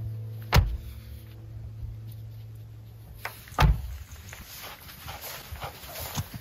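Pickup truck doors slammed shut twice, about three seconds apart, followed by footsteps in snow.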